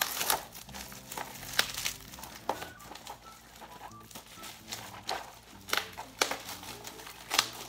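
Plastic packaging crinkling and crackling as it is worked open by hand, with sharp crackles every second or so.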